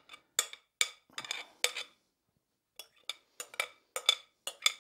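Metal spoon scraping and clinking against a glass mixing bowl as salad is scooped out, a quick series of ringing clinks that stops for about a second midway and then resumes.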